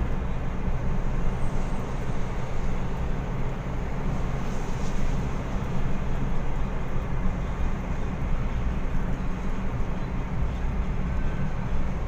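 Steady low rumble of engine and tyre noise heard from inside a car cruising on a highway.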